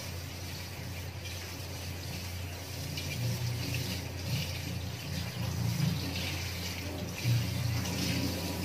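Kitchen tap running while utensils are washed at the sink, with a steady low hum underneath.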